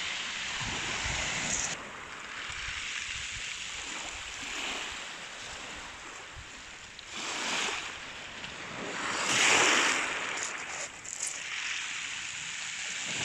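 Small waves breaking and washing over a shingle shoreline, a steady wash with two louder surges a little past halfway, the second the loudest.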